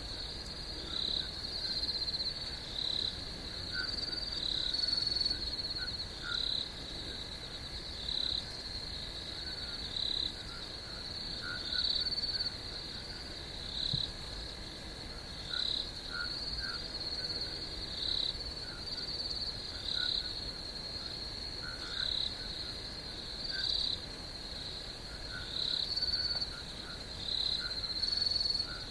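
Night chorus of insects and frogs: a steady high trill, with short calls repeating about every second or so and fainter lower chirps among them.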